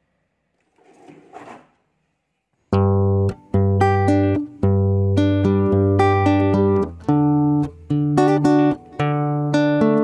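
Background music: a plucked guitar melody over a bass line, coming in suddenly about three seconds in after near silence and a brief faint rustle.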